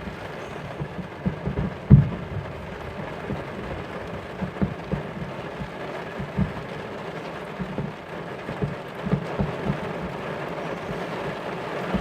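Fireworks going off: a string of short, irregular low booms and thuds, the loudest about two seconds in, over a steady hiss of rain.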